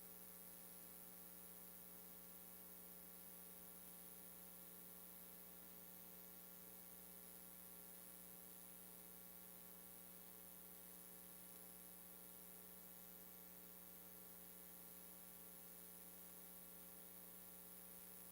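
Near silence: a faint steady electrical hum with many evenly spaced overtones and no other events.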